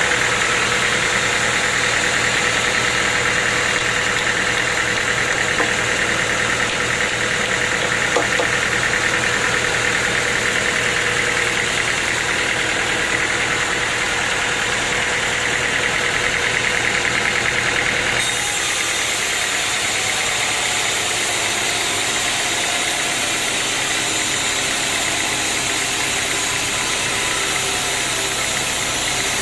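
Sawmill machinery running steadily, with the sound changing abruptly about two-thirds of the way in.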